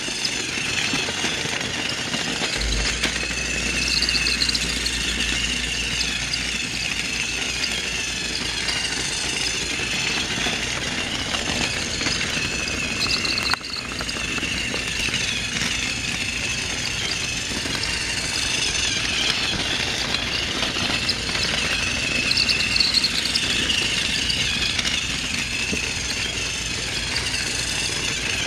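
Battery-powered Thomas & Friends toy train engine running on plastic track: a steady high motor whir with the rattle of its wheels and wagons. It grows louder and fades again about every nine seconds as the train circles the loop, and there is a single click about halfway through.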